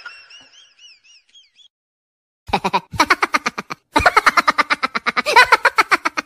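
Comic sound effects: a warbling, wavering whistle-like tone that fades away over the first second and a half. After a short silence comes a fast, stuttering run of rapid pulses in three stretches, close to sped-up cartoon chatter or laughter.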